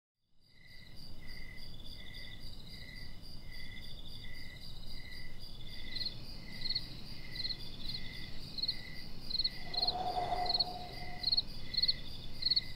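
Crickets chirping, several overlapping in steady repeating pulses about one to two chirps a second, over a faint low background hush.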